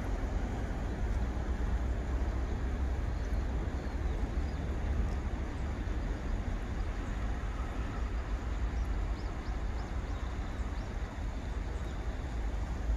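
Steady outdoor background noise: a constant low rumble with an even hiss over it and no distinct events.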